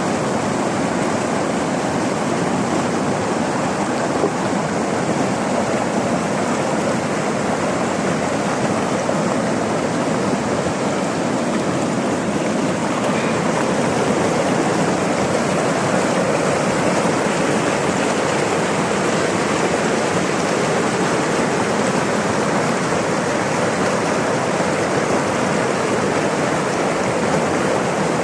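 River water flowing and rushing in a steady, unbroken roar of water noise.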